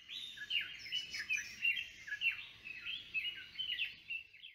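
Birdsong: a quick, continuous run of high chirps and warbled notes that stops abruptly at the end.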